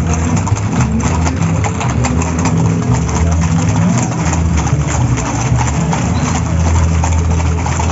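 Many horses' hooves clip-clopping on a paved street, with a steady low drone underneath.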